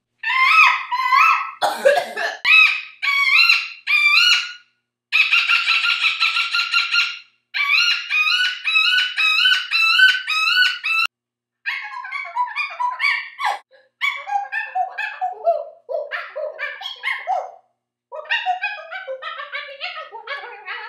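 A woman imitating bird calls with her voice: phrases of quick, high chirps and warbles, a fast trill about five seconds in, then lower, choppier chirping through the second half, with short breaks between phrases.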